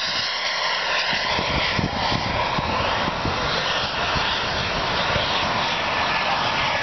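Radio-controlled model jet's turbine engine running at flying power as the jet passes low overhead, a steady rushing roar with a whine that bends in pitch; near the end a high whine falls slowly.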